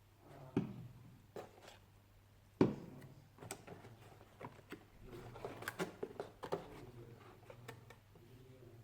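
Objects being handled on a tabletop: a few sharp knocks, then a run of small clicks and rustles.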